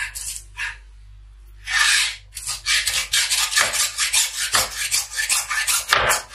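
Hacksaw blade sawing through a goat kid's neck bone and meat: a few short strokes, a pause, then quick, steady back-and-forth strokes from about two seconds in. The neck is being scored part-way through, not cut off.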